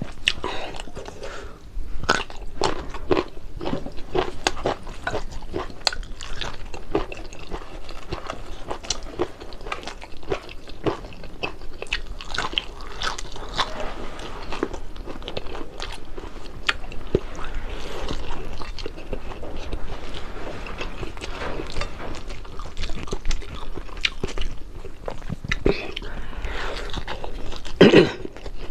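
Close-up chewing and biting of crispy fried fish, with many short crisp crunches throughout. A brief louder sound comes near the end.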